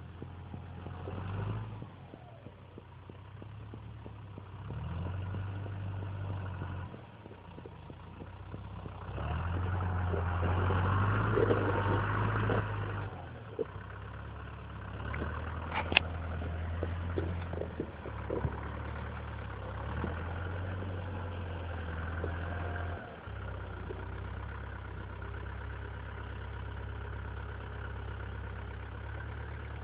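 Lamborghini Cross 70 tractor's diesel engine working a front loader, its revs rising and falling in several surges as it pushes snow. There is one sharp knock about halfway through.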